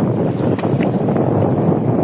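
Wind blowing across the microphone: a loud, steady noise without any pitch.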